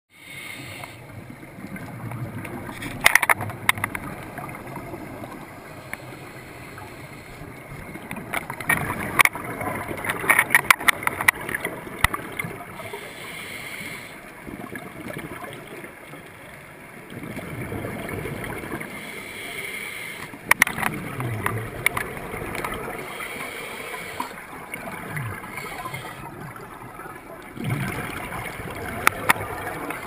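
Underwater sound heard through a camera housing: scuba divers' exhaled bubbles gurgling up from their regulators over a steady rush of water, with scattered sharp clicks and knocks.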